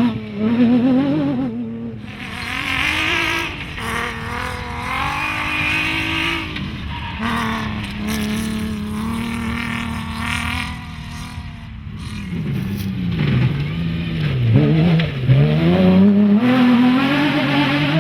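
Rally car engine at full throttle, its pitch climbing and dropping as it shifts through the gears, with several quick drops and rises in pitch near the end.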